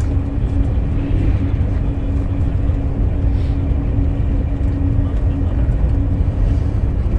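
Inside a Eurostar TGV TMST carriage while the train runs: a steady low rumble with a constant hum, and a few faint ticks.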